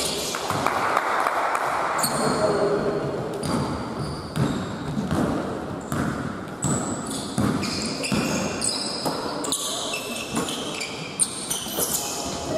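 Indoor basketball game in a hall: the ball bouncing on the court and sneakers squeaking in many short, high-pitched chirps, echoing around the gym.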